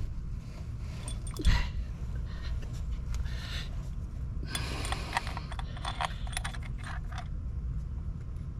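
Tools and bolts clinking and scraping against metal as an oil filter housing is fitted to an engine, with a thump about a second and a half in and a run of quick light clinks in the second half. A steady low hum sits underneath.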